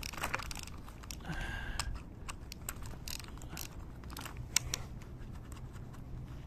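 Ratchet wrench clicking in short, uneven runs as the nuts on a curtain-sider tarp's roller brackets are broken loose, with scattered metal clicks from the bracket and a brief squeak about a second and a half in.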